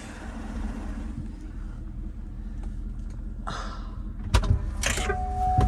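A vehicle's engine running low and steady as it crawls along a rough off-road trail, with a brief rush of noise about three and a half seconds in and two sharp knocks near the end.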